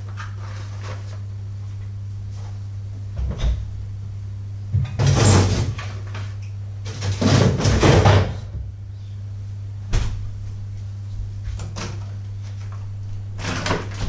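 Fridge door opened and things handled inside, with loud rustling and clatter about five seconds in and again around seven to eight seconds, then the door shut with a sharp knock about ten seconds in, all over a steady low hum.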